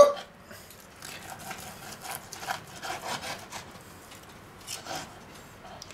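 Knife sawing back and forth through a grilled steak on a wooden board, a run of short, faint scraping strokes, with a couple more strokes near the end.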